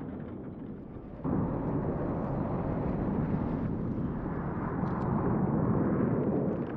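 Rivian electric pickup's tyres skidding and spraying dirt and gravel as it drifts, a steady rushing rumble with no motor whine. It jumps sharply louder about a second in.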